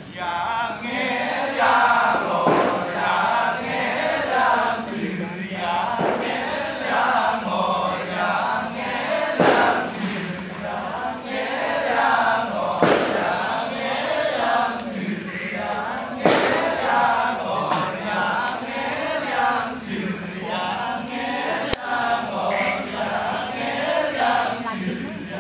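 Balinese Kecak chant: a large male chorus chanting without instruments, a dense interlocking "cak" texture over a low chanted line that rises and falls.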